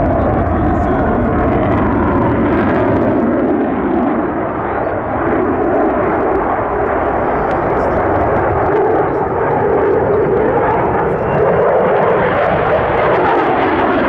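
Swiss Air Force F/A-18C Hornet's twin General Electric F404 turbofans, a loud, steady jet rumble as the fighter flies its display, the pitch shifting slowly up and then down.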